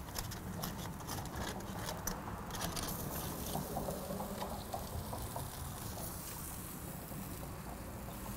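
Aluminium foil crinkling and crackling as metal tongs open and prod a foil packet on a grill, busiest over the first three seconds, over a steady low rumble.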